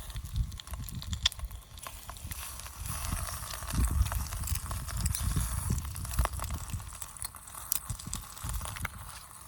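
Wood campfire crackling, with many irregular sharp pops over an uneven low rumble.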